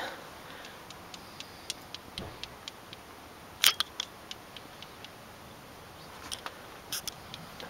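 Handling noise of a handheld camera: scattered faint clicks and ticks over quiet room tone, with a sharper double click about three and a half seconds in and a few more near the end.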